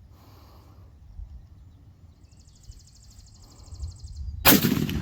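A single loud rifle shot about four and a half seconds in, a sharp crack with a short rumbling tail, after a brief swell of sound just before it.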